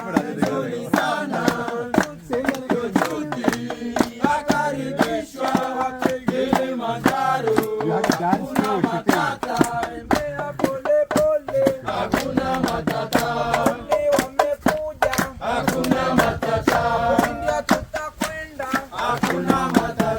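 Several voices singing a Swahili call-and-response pounding song, kept in time by a steady run of knocks from a wooden pestle pounding sun-dried coffee beans in an albizia-wood mortar to loosen their husks.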